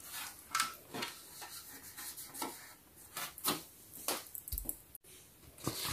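Light handling noises: a dozen or so uneven small clicks and taps of fingers pressing a paper sticker onto the plastic wall of a toy building, with soft rustles of the sticker paper.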